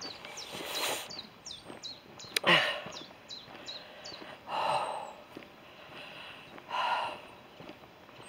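A walker's heavy breathing, one puff about every two seconds. A small bird sings a quick run of short, high, falling notes over the first half.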